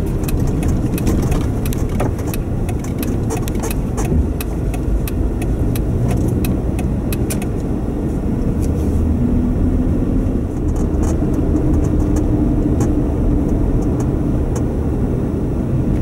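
Car driving over snow-packed, rutted roads, heard from inside the cabin: a steady low rumble of engine and tyres, with irregular clicks and crackles through roughly the first half.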